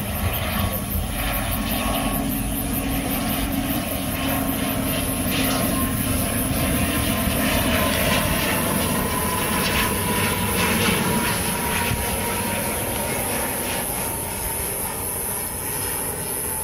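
ATR 72-600 turboprop on final approach, its Pratt & Whitney PW127 engines and propellers giving a steady drone. A whine near the top of the sound slowly falls in pitch as the aircraft passes.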